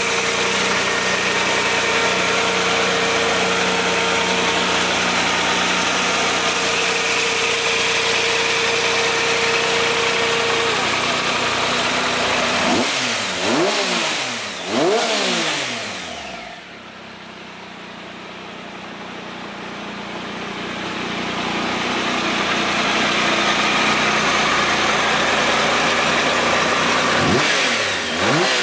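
Triumph Tiger Sport 1050's three-cylinder engine idling, blipped twice in quick succession about halfway through and once more near the end. In between the sound drops away briefly and swells back.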